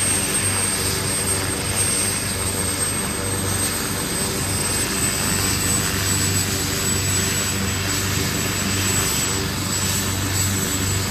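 Helicopter running steadily: a rotor and engine drone with a thin high turbine whine that drifts slightly lower in pitch.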